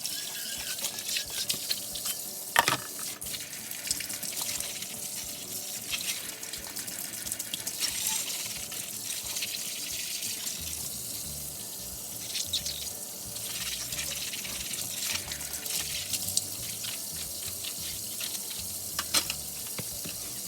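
Kitchen tap running into a sink while dishes are washed, with occasional clinks of dishes and utensils, the sharpest about two and a half seconds in and again near the end.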